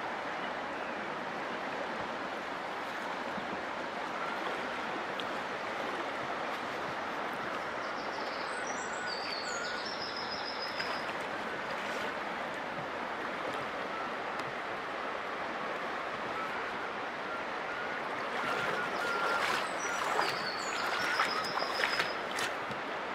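River water rushing steadily, with a small bird singing a short chirping phrase that falls in pitch, once around ten seconds in and again near the end. Near the end a run of clicks and crunches from footsteps on river pebbles.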